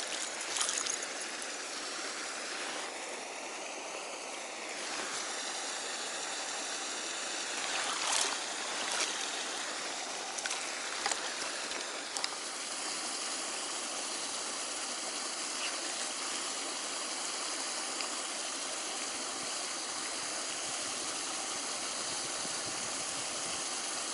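Steady rush of flowing water, with a few faint knocks about a third of the way in.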